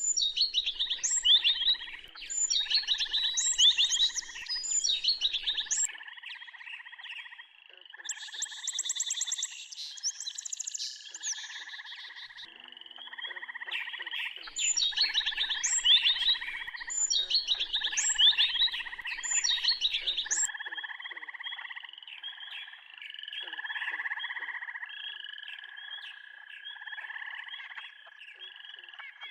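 Birds chirping in clusters of quick, high, sweeping notes that come and go, over a continuous pulsed trilling lower down.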